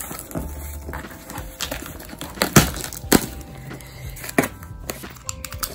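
Cardboard shipping box being opened by hand: packing tape tearing loose and the cardboard flaps rustling and creaking, with a handful of sharp snaps and knocks, the loudest about two and a half and three seconds in and a quick run of them near the end.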